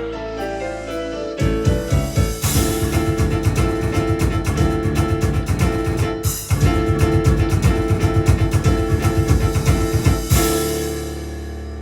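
Yamaha Electone electronic organ playing a fast, driving passage over a drum rhythm, with a short break about six and a half seconds in, then ending on a held final chord that fades away.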